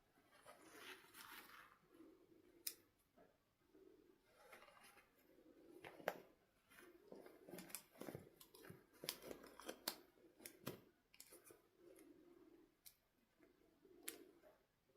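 Quiet handling of doll packaging during unboxing: scattered sharp clicks and soft rustles, with snipping sounds.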